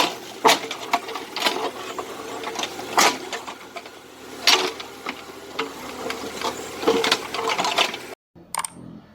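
Small excavator working: a steady mechanical rattle with irregular sharp clanks and clicks, which stops abruptly about eight seconds in.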